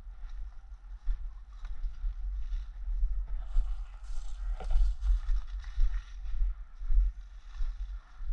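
Footsteps on a wood-chip path and leaves brushing against a body-worn camera as a person walks through leafy bushes, over a steady low rumble on the microphone. The brushing is thickest about halfway through.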